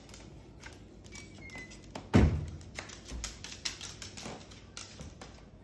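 A sharp thump about two seconds in, then a run of light clicks and taps as a Moluccan cockatoo walks on the hardwood floor.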